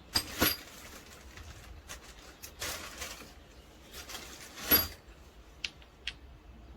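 Handling noise: a few sharp clicks and knocks with a short rustle in between, the loudest a ringing clack about two-thirds of the way through, then two light clicks.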